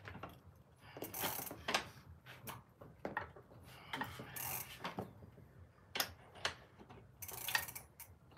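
Bicycle pedal being threaded into the crank arm and tightened with a pedal wrench: irregular metallic clicks and short ratcheting rasps, about one a second.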